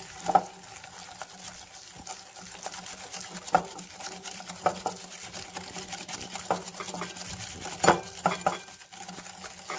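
Wire balloon whisk beating ghee and icing sugar in a glass bowl, creaming them together: a steady scraping swish, with the wires clinking against the glass every second or two, loudest about eight seconds in.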